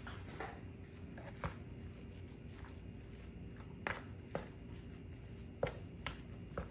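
Ground meat being stirred in a plastic bowl with a plastic spoon: soft working of the meat, with half a dozen scattered sharp clicks and knocks as the spoon strikes the bowl.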